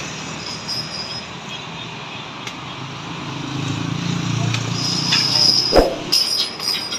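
Street traffic: motor scooters passing close by, their engine sound swelling over the second half and peaking just before the end, with a thin high squeal near the end.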